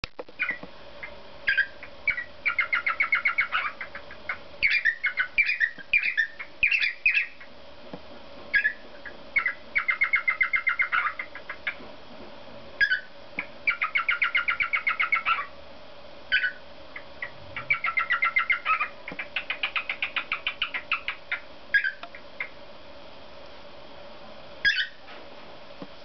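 Cockatiel singing: runs of rapid repeated chirping notes, about ten a second and each run lasting around a second, broken by single whistled calls. A faint steady hum lies underneath.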